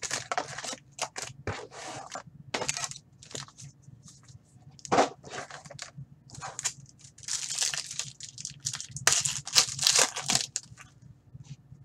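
Foil wrappers of Black Diamond hockey card packs crinkling and rustling as the packs are handled, pulled from the cardboard box and stacked. The crackling comes in irregular bursts, louder and denser in the second half as a pack is torn open.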